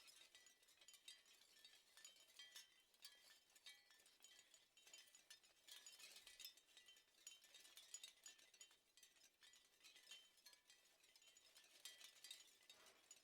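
Shell wind chime: the shells clink and tinkle against one another in a faint, irregular, continuous patter.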